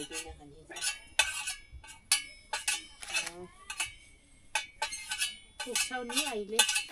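Metal spoon clinking and scraping against metal plates as rice is dished out, a series of sharp clinks. Soft voices come in between.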